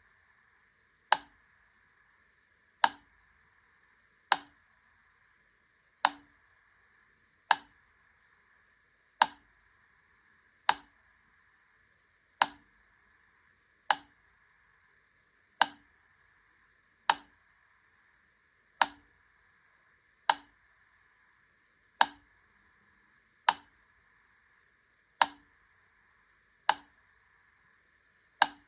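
Wittner Taktell Piccolo clockwork metronome ticking slowly, one sharp tick about every second and a half, with a faint steady hiss between the ticks.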